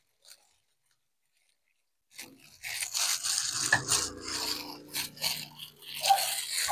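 Plastic-gloved hand kneading crumbly rice-flour dough in a stainless steel bowl: a rubbing, scraping noise with the glove rustling, starting about two seconds in.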